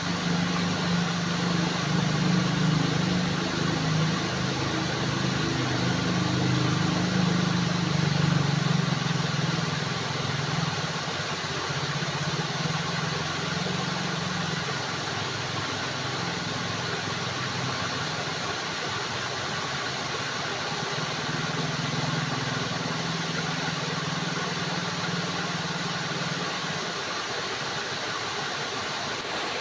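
Steady rush of flowing water, with a low wavering rumble under it that fades near the end.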